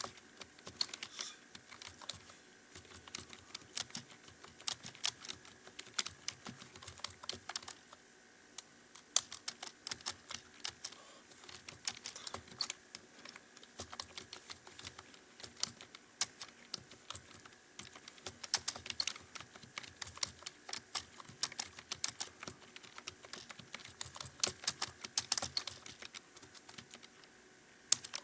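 Computer keyboard being typed on fast, in quick irregular runs of keystrokes with a couple of short pauses: copying a passage in a timed English typing speed test. A faint steady hum runs underneath.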